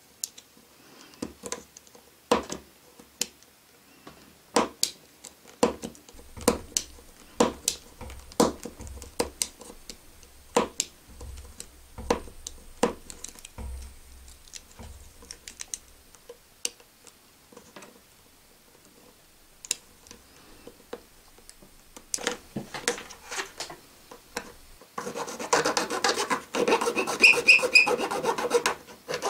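Craft knife trimming the end of a plastic K'Nex rod: irregular sharp clicks of small cuts, then, about 25 seconds in, fast continuous scraping as the blade shaves the plastic down.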